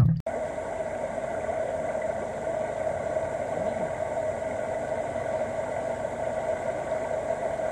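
Steady rushing of a shallow river flowing over and between rocks.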